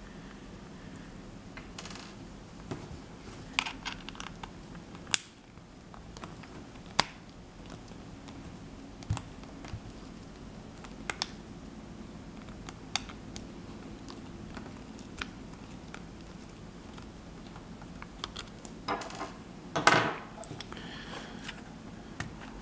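Scattered light clicks and taps of a small precision Torx screwdriver working the tiny screws out of a Palm M515 PDA's back cover, with the screws and tools being handled and set down on a wooden table. A quick run of louder clicks comes near the end.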